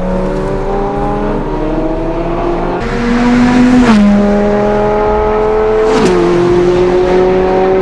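Lamborghini Gallardo's V10 engine pulling hard at full throttle, its pitch climbing steadily. Two quick upshifts, about four and six seconds in, each drop the pitch sharply before it climbs again.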